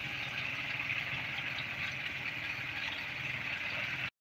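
An engine idling steadily, with a low rumble under a hiss. It cuts off suddenly near the end.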